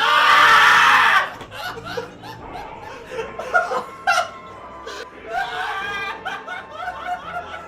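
Several people breaking into hard laughter, with a very loud burst in the first second, over background music.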